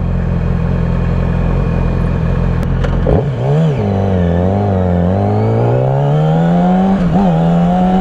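Sport motorcycle engine running at a low, steady note. About three seconds in it picks up, the pitch wavering with the throttle, then rising steadily as the bike accelerates before levelling off.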